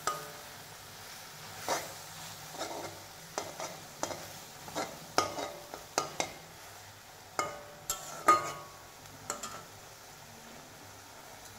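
Spatula scraping and knocking irregularly against a metal wok while stir-frying chopped greens, some strokes ringing briefly, over a low sizzle. The stirring stops about two seconds before the end.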